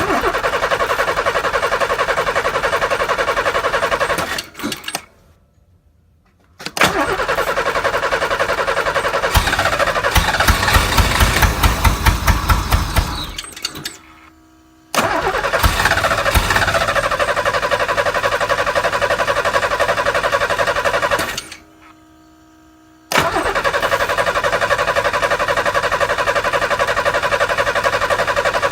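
Pontiac Fiero's starter cranking the engine in four separate attempts; during the second attempt the engine fires in loud uneven pulses but never catches and runs. The engine fires but won't start, a fault the owner traced to its Bosch Platinum spark plugs.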